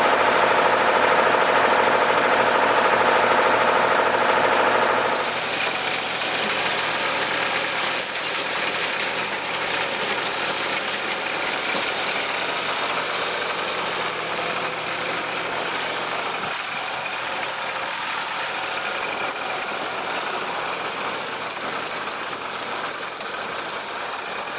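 Tractor engine running steadily. It is louder for the first five seconds or so, then settles slightly quieter.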